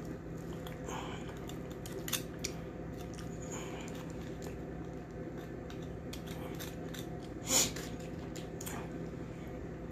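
A few light clicks of cutlery against a plate while eating, the loudest about three quarters of the way through, over a steady low hum.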